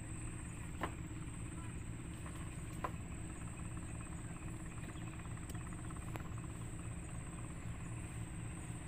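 A steady low engine hum, with a thin, continuous high-pitched whine over it. Two faint clicks come about one and three seconds in.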